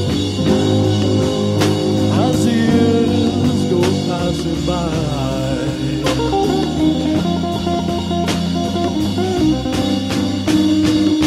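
Background music: a song with a steady drum beat, guitar and a singing voice.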